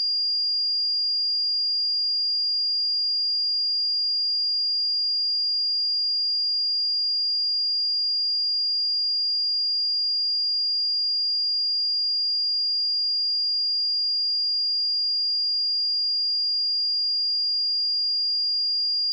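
A steady, pure 4814 Hz sine-wave test tone, held at one constant pitch and level.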